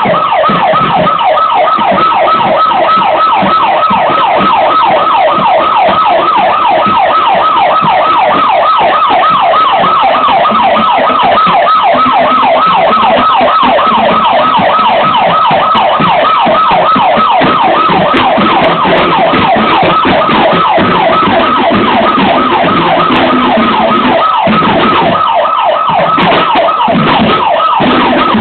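Electronic siren sounding a continuous yelp: a fast rising-and-falling wail that repeats several times a second without a break.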